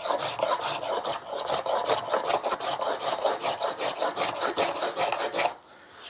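Hand plane shaving wood off a small hardwood block in quick, short, rhythmic strokes, about four or five a second, each a dry scrape; the strokes stop shortly before the end.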